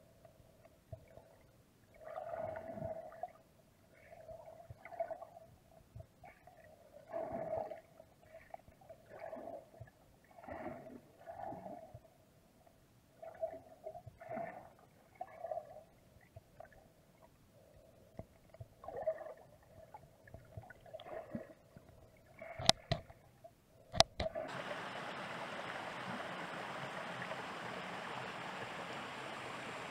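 Muffled underwater gurgling and bubbling heard through an action camera's waterproof housing, in irregular bursts over a faint steady hum. Two sharp knocks come about three-quarters of the way in, then the sound switches abruptly to the steady rush of flowing river water heard above the surface.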